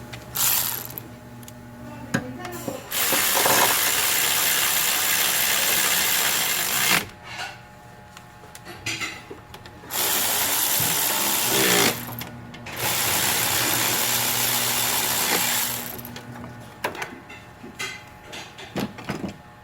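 Handheld power tool, such as a drill or power ratchet, running in three spells of a few seconds each, with quieter tool clicks and knocks between them.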